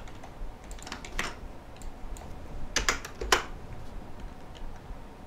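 Computer keyboard keystrokes: a few scattered key clicks, with a quick burst of several strokes about three seconds in.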